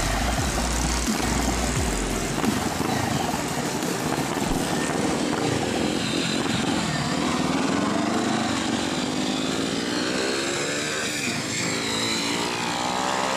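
Motorcycle engine heard from the rider's seat, with heavy wind noise on the microphone. The engine pitch climbs as the bike accelerates, once around the middle and again near the end.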